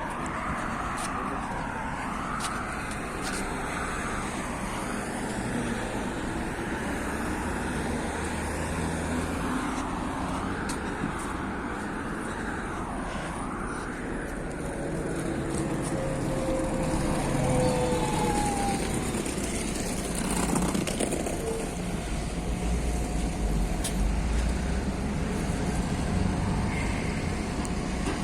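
MAZ city bus on the move: steady engine and road noise, with a whine that rises and falls over and over in the first half and a few brief high squeals around the middle. The running gets louder, with more low rumble, in the second half.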